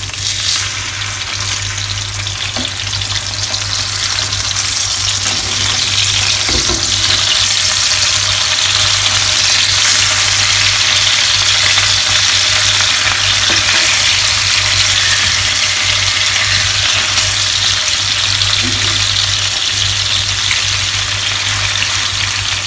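Sea bass steaks sizzling as they shallow-fry in hot coconut oil; the sizzle swells a little over the first few seconds as the pieces are turned. A few light taps and scrapes come from a metal spatula against the pan.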